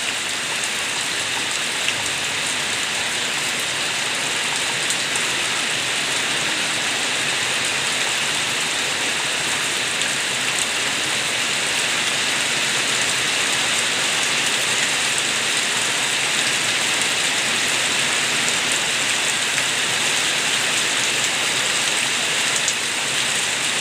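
Steady rain with rainwater gurgling as it runs off outside a window, an even hiss with faint drop ticks.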